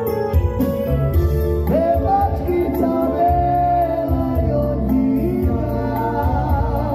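Male singer on a handheld microphone, singing long sliding notes over electronic keyboard accompaniment with a steady bass line.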